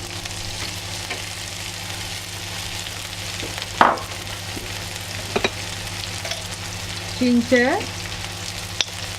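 Chopped onions sizzling as they fry in a little oil in a pan, with a few sharp knocks about four and five seconds in and near the end.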